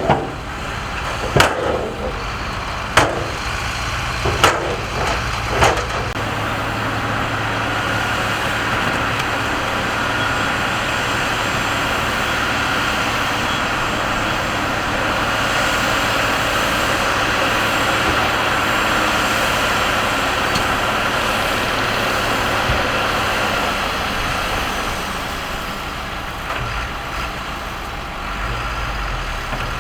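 Heavy diesel earthmoving machinery running steadily, with four sharp knocks in the first six seconds.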